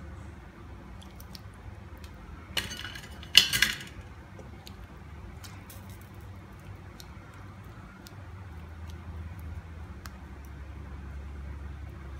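Cookware clinking and clattering twice, briefly, about two and a half and three and a half seconds in, the second louder. Faint small ticks and a low steady hum continue throughout.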